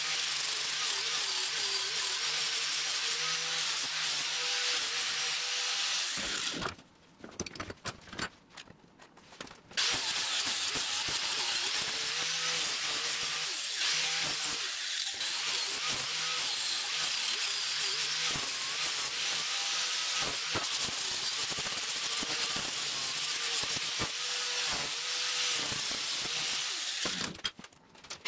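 Angle grinder with an abrasive disc grinding and smoothing a welded steel engine mount held in a vise, the motor's pitch wavering as the disc is pressed into the metal. It stops for about three seconds a third of the way in and briefly again near the end.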